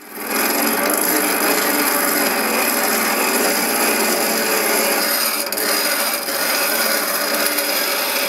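Steel of a carving gouge being ground on a hand-cranked bench grinder: a steady, continuous grinding hiss of the edge against the spinning abrasive wheel.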